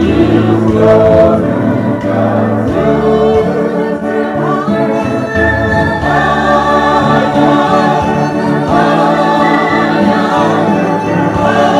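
A worship group of several men and women singing a gospel song together in harmony, amplified through hand-held microphones.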